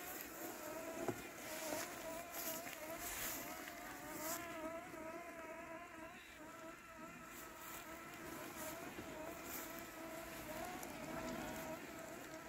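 Landxcape 790 robotic lawn mower's brushless motor running while it cuts through weeds: a faint, steady buzzing whine that wavers slightly in pitch. A few brief hissy swishes come in the first few seconds.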